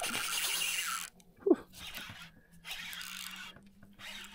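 A small hooked threadfin salmon splashing and thrashing at the water's surface beside the boat, loudest in the first second, with softer splashes later and a short sharp sound about one and a half seconds in.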